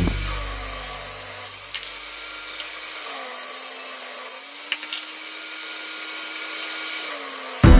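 Table saw running and cutting plywood, a steady hum over a faint high hiss, dipping slightly in pitch a couple of times under the load of the cut. Background music fades out at the start and comes back in sharply near the end.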